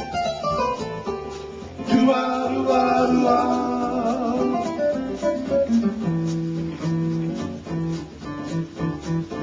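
Music led by guitar with no sung words: a falling run of notes at the start, then a melody over repeated low bass notes.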